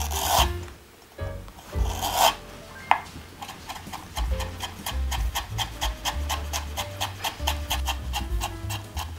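Kitchen knife julienning sliced ginger on a wooden cutting board: a couple of scraping sounds as the slices are pushed together, then quick, even chops knocking on the board several times a second.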